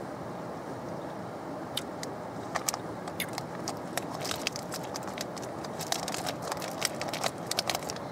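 Spoon scraping and clicking against a camp cooking pot as a rehydrated meal is stirred or eaten: a run of quick, irregular scrapes and clicks starting about two seconds in, over a steady rushing noise.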